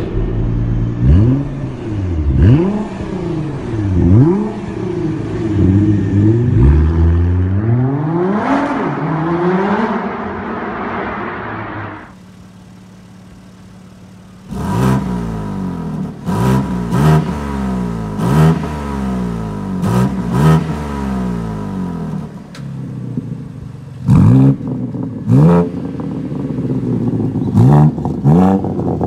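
BMW G82 M4's twin-turbo 3.0-litre S58 inline-six, breathing through a Stage 2 Underground Exhaust valved exhaust, revved repeatedly while standing still. Quick blips rise and fall about every second and a half, with one longer climb and a short spell of idle about halfway through before the blips start again. The loudest blips come near the end, with the exhaust valves open.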